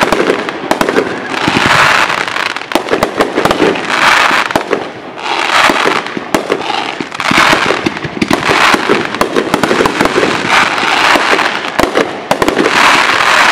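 Aerial fireworks shells bursting in quick succession: a continuous string of sharp bangs, with a denser wash of noise swelling about every second and a half as new volleys go off.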